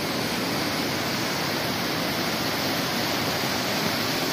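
Steady rushing of a small mountain stream and waterfall, an even hiss of falling water with no breaks.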